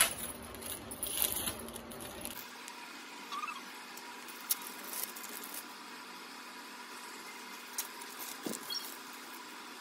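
Crinkling and crackling of plastic cheese-slice wrappers as processed cheese slices are peeled out, dense in the first couple of seconds, then only a few light clicks over a faint steady hum.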